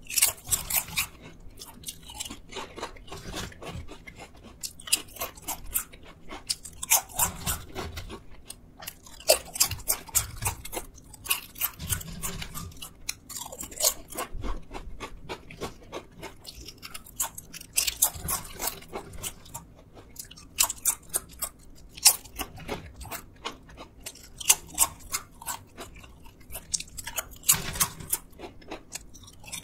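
Close-miked crunching and chewing of crisp potato chips, with a fresh cluster of sharp crunches every few seconds and softer chewing in between.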